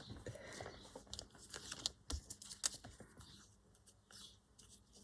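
Faint rustling and light clicks and taps of paper and small craft pieces being handled, dying away after about three seconds.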